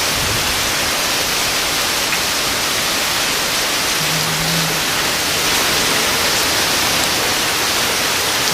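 Heavy thunderstorm rain pouring down in a steady, dense hiss, with water streaming from the gutters.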